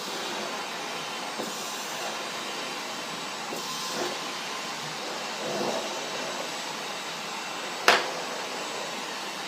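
Vacuum cleaner running steadily, with a sharp click near the end.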